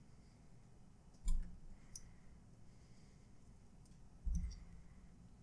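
Handling noise of nylon paracord being fed by hand through a monkey's fist knot: a few light clicks and two dull thumps, about a second in and again about a second before the end.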